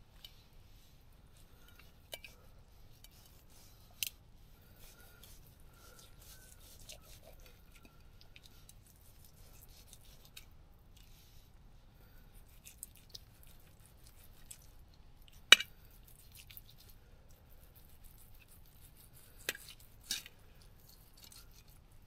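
A few sharp, isolated clicks and taps over faint, quiet crackling, the loudest click about fifteen seconds in and two more close together near the end.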